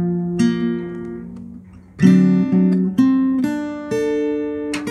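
Background music on guitar: plucked notes and chords, each ringing out and fading before the next.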